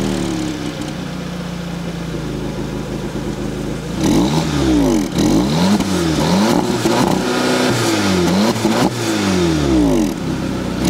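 2015 Volkswagen Polo GTI's 1.8-litre turbocharged four-cylinder, heard through its twin exhaust, settling to a steady idle just after a cold start. From about four seconds in it is revved while standing still, the pitch rising and falling in several quick throttle blips.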